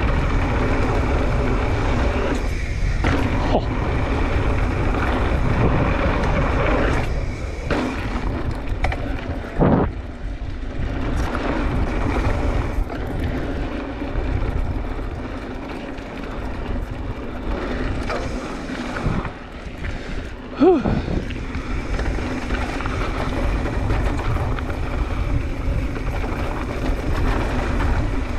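Wind buffeting the chin-mounted camera and tyres rolling over a dirt trail on a fast e-mountain-bike descent. A faint steady hum runs underneath, and two sharp knocks come from the bike, about ten and twenty-one seconds in.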